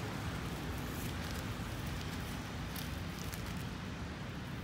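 Steady low outdoor rumble with a few faint rustles and crackles of dry leaf litter underfoot.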